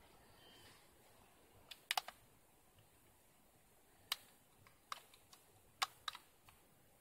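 Scattered sharp, light clicks, about ten of them in small clusters over a faint hiss.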